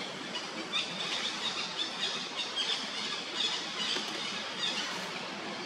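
Monkeys giving a rapid series of short, high-pitched squeals, several a second, that stop shortly before the end.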